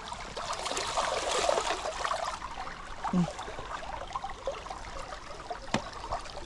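Small forest stream running and trickling over stones, swelling a little louder about a second in, with a sharp click near the end.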